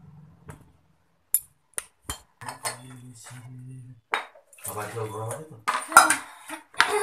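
Kitchenware being handled on a counter: a few light clicks, then louder clinks and clattering knocks of a saucepan, mug and tray, the loudest about six seconds in.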